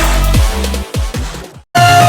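Electronic background music with a heavy beat and falling bass notes. It cuts out for a moment near the end, then comes back in.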